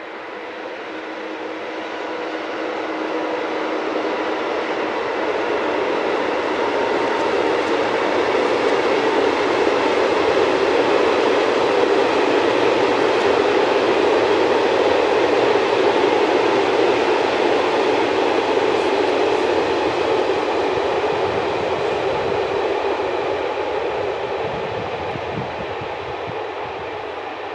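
Freight train hauled by an electric locomotive passing over a concrete railway viaduct: a steady rolling rumble of wheels on rail that swells to a peak about halfway through, then slowly fades as the long string of wagons goes by.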